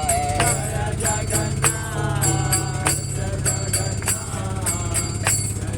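Devotional kirtan music in a pause between sung lines: an instrumental melody over a steady low drone, with regular jingling percussion strikes.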